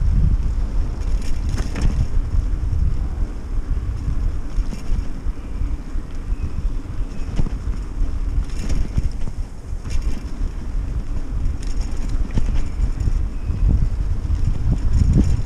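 Wind buffeting the microphone of a camera riding along on a moving bicycle, a heavy, uneven rumble, with short hisses every few seconds.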